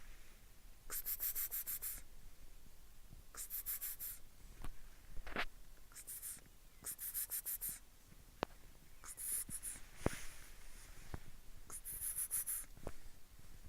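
Crunching steps in snow: short crackly crunches every couple of seconds, with a few faint clicks between them.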